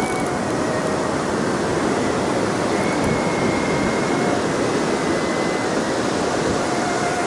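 Sea surf breaking and washing up a sandy beach, a steady rushing noise that never lets up.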